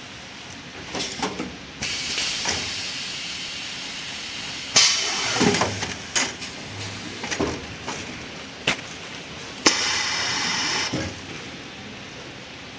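Semi-automatic toilet-roll packing and sealing machine at work: long bursts of hissing air twice, a sharp loud burst about five seconds in, and scattered clicks and knocks between.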